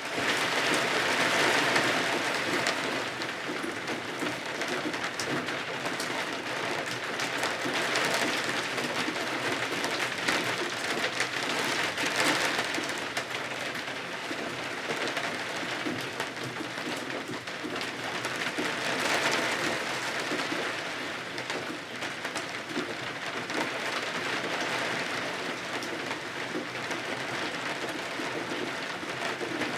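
Steady rain falling, a continuous hiss that swells louder and eases off several times.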